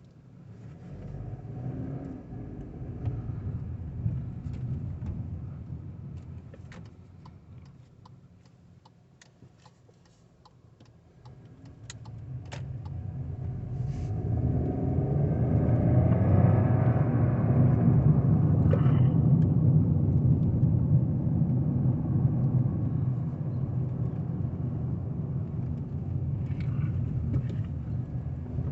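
Volkswagen 200 TSI car's 1.0-litre three-cylinder turbo engine running. Its sound swells briefly, fades away almost to nothing, then builds again about halfway through and stays loud. Scattered light clicks come in the quiet middle stretch.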